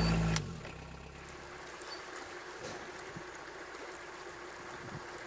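Narrowboat's Beta Marine diesel engine running loud for a moment, then, after a sudden drop a split second in, a steady lower hum as the boat motors along, with a faint wash of water.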